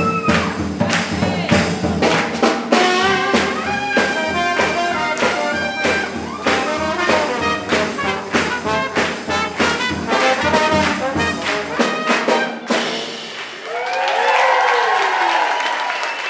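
A live swing band, with trumpet, trombone, piano and drum kit, plays a brisk number and ends it about 13 seconds in. The crowd then breaks into applause and whoops.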